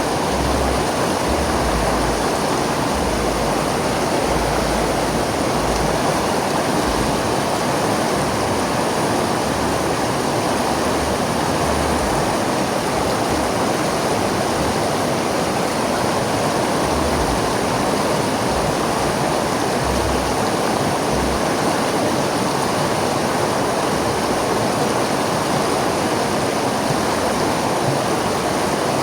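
River flowing: a steady, unbroken rush of running water.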